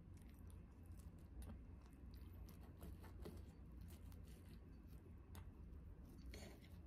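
Faint clicks and scrapes of a knife and fork cutting through French toast on a plate, with a brief cluster of louder scrapes near the end.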